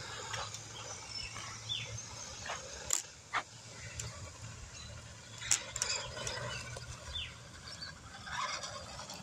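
Quiet outdoor street ambience: scattered short bird chirps over a low steady hum, with a few faint clicks.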